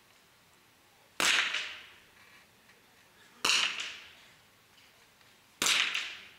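.22 rimfire smallbore target rifles fired three times, a single shot about every two seconds, each a sharp crack with a short echoing tail.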